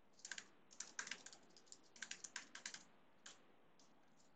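Faint typing on a computer keyboard: several quick runs of keystrokes, then one last keystroke about three seconds in.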